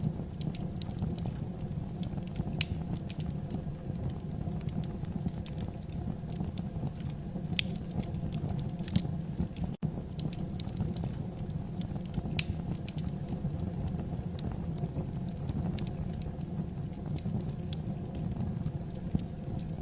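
Wood fire burning in a fireplace: a steady low rumble of flames with irregular sharp crackles and pops of the burning logs. The sound briefly drops out for an instant about ten seconds in.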